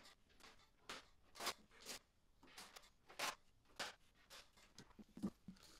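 Short, irregular scraping and rustling of hands working on the inside of a car's trunk lid, with a couple of soft knocks near the end.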